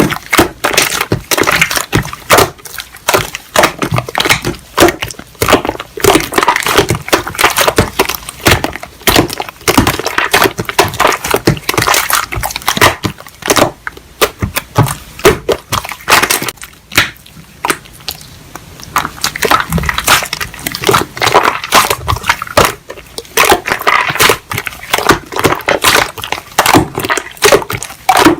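Slime being squeezed, pressed and stretched by hand, giving a dense, rapid run of clicks and pops without a break.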